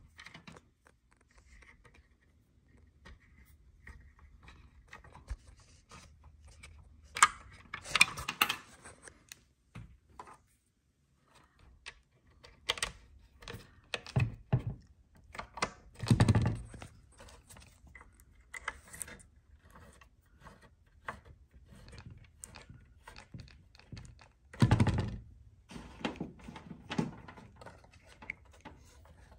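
Irregular handling sounds: scattered clicks and knocks, with heavier thumps about eight seconds in, about halfway through and near the end.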